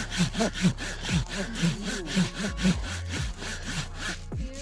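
A hand saw cutting back and forth through the trunk of a small wild conifer being felled as a Christmas tree, with the loudest strokes coming about twice a second.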